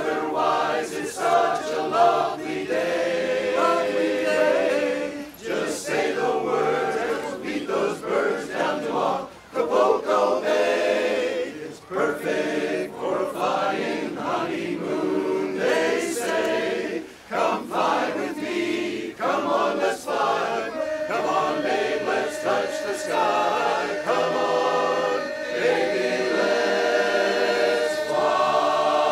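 A choir or vocal group singing a cappella, several voices in harmony with no instruments.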